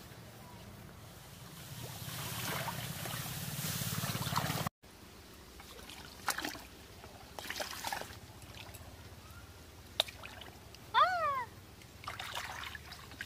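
Shallow water trickling and splashing as a hand gropes through a paddy-field ditch for crabs, preceded by a rising rustle. A brief, high call about three-quarters of the way through is the loudest sound.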